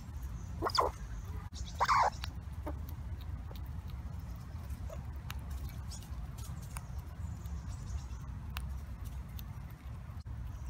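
Red squirrel nibbling a nut close to the microphone: scattered small crunching clicks over a steady low rumble. Two short, louder sounds come about one and two seconds in.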